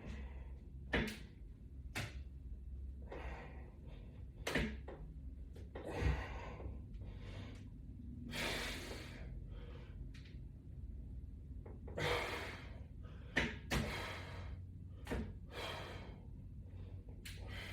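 A person exercising with resistance bands on a press: several breathy exhales about a second long, with scattered sharp clicks and knocks from the band attachment hardware.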